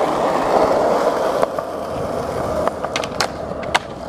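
Skateboard wheels rolling over pavement with a steady rumble. From about a second and a half in come several sharp clacks and knocks of the board, as a trick is popped and landed.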